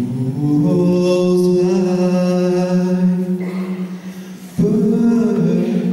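A male gospel singer singing long held notes into a microphone: one note sustained for about three seconds, then after a short break a second, higher note.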